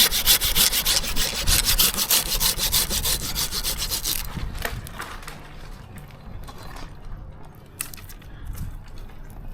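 Hand pruning saw cutting into dead ash wood with quick, even strokes, stopping about four seconds in. Quieter rubbing and a few sharp clicks follow.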